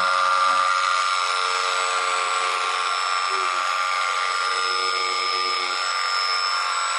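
Brushless drone motor spinning at high speed under a speed controller, turning a cooler swing motor as a generator through a wooden shaft: a steady high-pitched whine over a rough whirring noise, with the generator loaded by a lit LED bulb.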